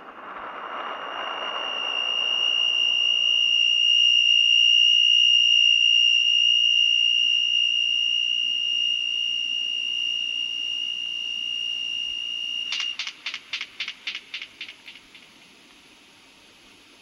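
A soundtrack effect: a single high, steady tone swells up as a fading hiss dies away, holds for about thirteen seconds, then breaks into a rapid pulsing of about five beats a second and fades out.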